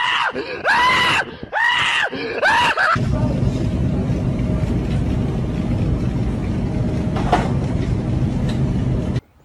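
A run of short, high-pitched screams, about one a second, over the first three seconds. Then a steady low noise that cuts off suddenly near the end.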